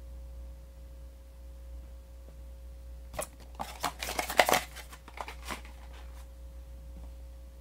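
Mystery-mini blind-box packaging torn and crinkled open by hand: a cluster of tearing and rustling about three seconds in, lasting about two seconds and loudest in the middle. A low steady hum runs underneath.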